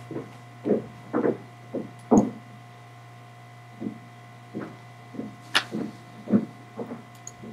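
Steady low electrical hum, with a dozen soft, irregularly spaced knocks and clicks and one sharper click about five and a half seconds in.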